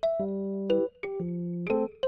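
Background music: a light tune on a piano-like keyboard. Notes and chords change about every half second.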